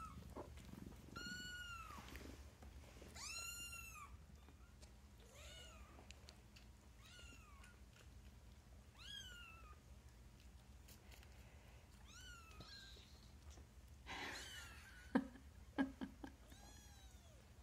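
Newborn kittens mewing: thin, high-pitched cries, each rising and falling in pitch, repeated every couple of seconds. Near the end there is some rustling and a few sharp knocks.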